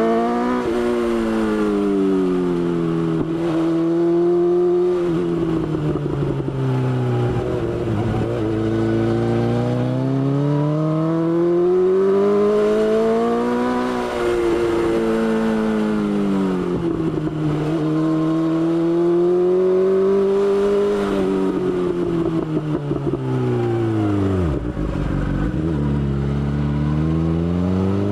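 BMW S1000XR's inline-four engine running under way, its pitch rising and falling again and again as the throttle is opened and rolled off, dropping lowest about 8, 17 and 25 seconds in.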